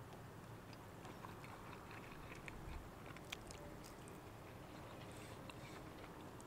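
Faint chewing and mouth sounds of a person eating a soft whitebait fritter, with a few small clicks a few seconds in.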